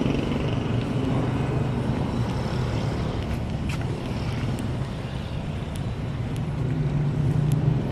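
Steady low engine hum over a noisy background, with a few faint ticks.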